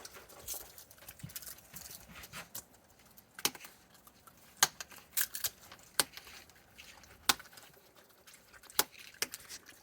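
Raccoons eating snacks: scattered sharp clicks and crunches at irregular intervals, the loudest a little under halfway through.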